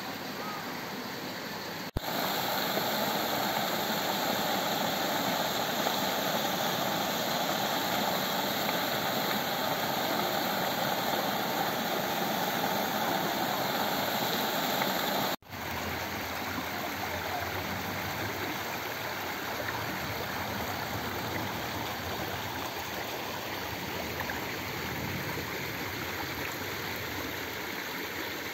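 Water pouring from a stone spillway into a pool below, a steady rushing noise. It cuts out for an instant twice, about two seconds in and about halfway through, and is a little quieter after the second break.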